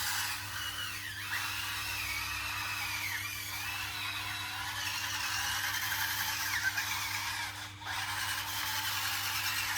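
Small electric drive motors and gearboxes of a 1/16-scale RC bulldozer whining, the pitch wavering up and down as the speed changes. The whine drops out briefly about eight seconds in.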